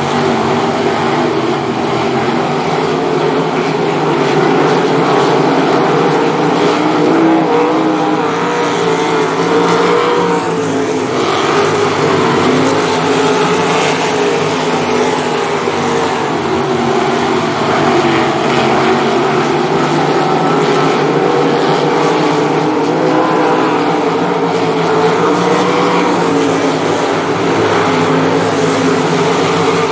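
A field of 305 sprint cars racing on a dirt oval, their small-block V8 engines running hard. Several engine notes overlap, rising and falling as the cars go through the turns.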